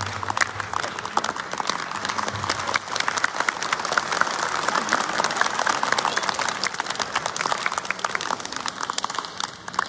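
A group of young monks clapping their hands, a dense, irregular applause that thins out near the end.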